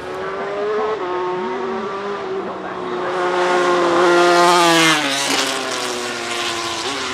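Racing motorcycle engine held at fairly steady revs as the bike passes close by. It grows louder to a peak about four to five seconds in, then drops in pitch as it moves away.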